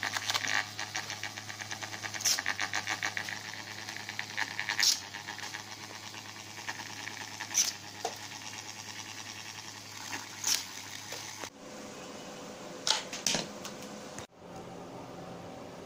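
The small DC motors of a homemade paper airplane launcher spin its two rubber-tyred wheels, running with a steady hum and a fast rattle. Four loud swishes, about one every two and a half seconds, come as paper airplanes are shot out between the wheels. About eleven seconds in the motor sound cuts off, and a quieter steady hum with a couple of knocks follows.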